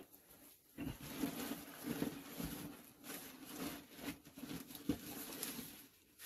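Faint rustling with scattered light knocks and clicks, the sound of handling and movement in a cramped rock cavity.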